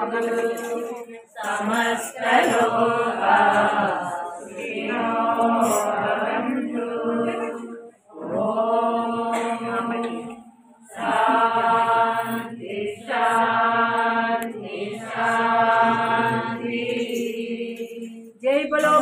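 Group of voices chanting a Hindu devotional bhajan together, in sung phrases a second or two long with brief breaks between them, over a steady held note.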